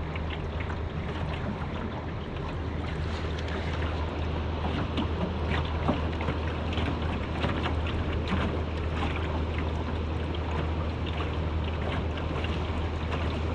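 Wind on the microphone and water lapping against a jon boat's hull, with many short splashes or ticks over a steady low hum.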